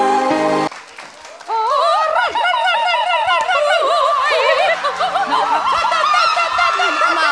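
A woman's held sung note over backing music cuts off under a second in. After a short lull comes rapid, high-pitched laughter that runs on to the end.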